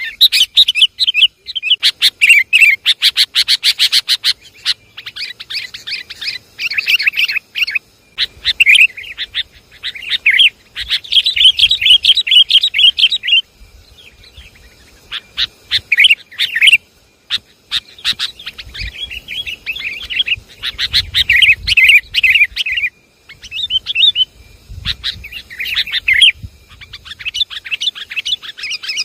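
Sooty-headed bulbuls (kutilang) calling in loud, chattering bursts of quick bubbly notes, broken by short pauses.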